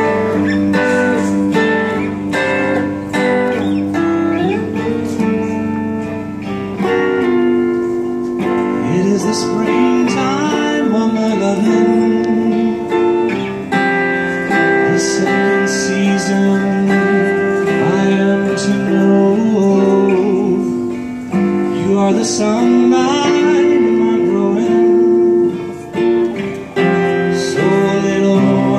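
A live band playing a song: strummed guitars over sustained bowed strings (violins, viola and cello), with a woman singing.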